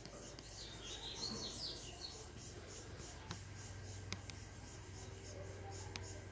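Faint ambience: a short run of bird chirps about a second in, over a fast, even, high-pitched pulsing, with a few light clicks later on.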